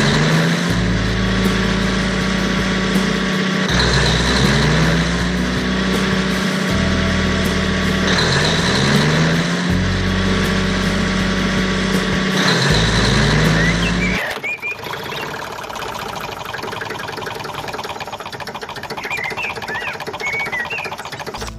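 Background music: a loop that repeats about every four seconds, a rising tone that levels off over a stepped bass line. About fourteen seconds in it gives way to a noisier, even texture with a few bird-like chirps near the end.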